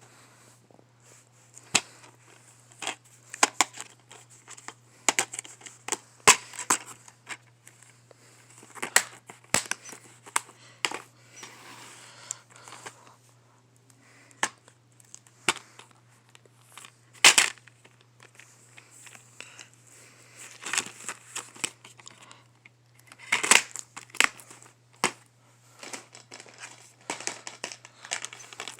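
DVD packaging being handled and unwrapped: plastic crinkling and tearing, with many sharp, irregular clicks and crackles, the loudest about 17 and 23 seconds in. A steady low hum runs underneath.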